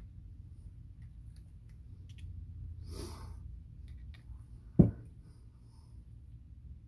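Faint clicks and rustles of handling on a workbench, then one loud, low thump about five seconds in as the cordless screwdriver is set down on the bench. A low steady hum lies underneath.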